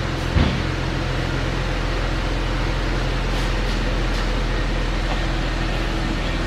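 Steady low machine hum, with a brief knock about half a second in.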